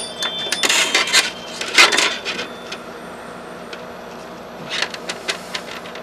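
Small metal linkage parts clicking and rattling as they are handled and fitted at an RC gas engine's carburetor, in a few short bursts: around one to two seconds in and again about five seconds in.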